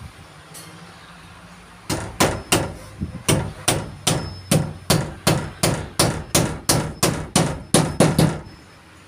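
Hammer striking nails into hard wood: a steady run of about twenty quick blows, roughly three a second, starting about two seconds in and stopping shortly before the end.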